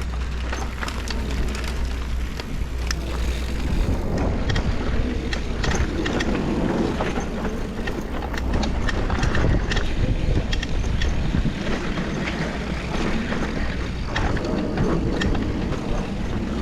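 Mountain bike riding down a rough, dusty dirt trail: tyres rumbling over the ground, the bike rattling with many sharp clicks, and wind buffeting the microphone.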